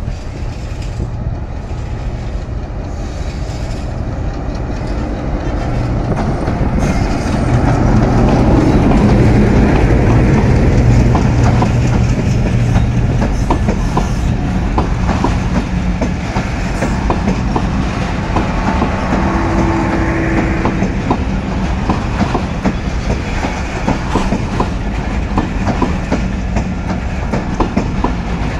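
ALCO diesel locomotive hauling a passenger express past at speed. Its engine grows louder and is at its loudest about eight to twelve seconds in as it goes by. After that, the passenger coaches roll past with a steady, rhythmic clickety-clack of wheels over rail joints.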